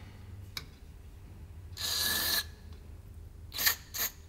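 Aerosol carb cleaner sprayed through its extension straw into a primer solenoid's fuel passages: one hiss of about half a second with a thin whistle in it, then two short squirts near the end.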